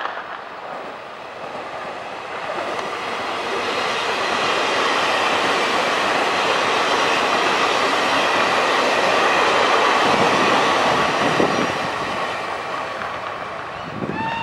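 A Taiwan Railways EMU800 electric multiple unit passing close by. The rumble of its wheels on the rails builds as it nears, stays steady and loud as the cars go by, then eases off near the end.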